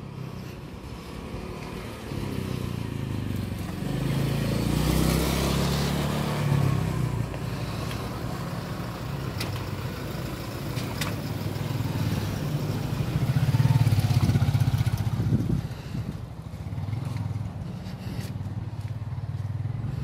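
Vehicle engines running on the road, with a motor swelling louder partway through and dropping away a couple of seconds later, as a vehicle passes close by.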